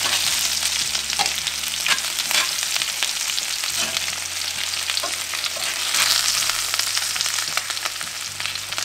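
Diced potatoes frying in oil in a cast-iron skillet, a steady sizzle, while metal tongs toss them, clicking and scraping against the pan again and again.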